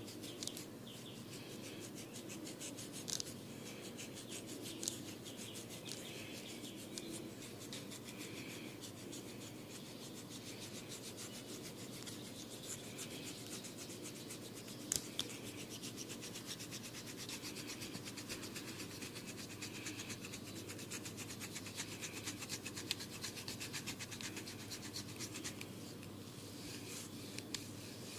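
Hair and scalp being rubbed and scratched in a head massage: a continuous run of rapid, fine scratching strokes, broken by a few sharper clicks.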